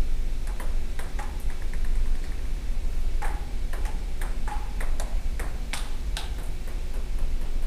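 Table tennis rally: the ball clicking sharply off the paddles and ringing off the table. A few hits come early, then after a short gap a steady exchange at about two hits a second, over a steady low hum.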